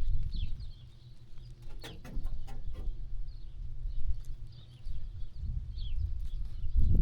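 Farmyard birds chirping in short, falling calls over a loud, uneven low rumble, with a few sharp clicks about two seconds in.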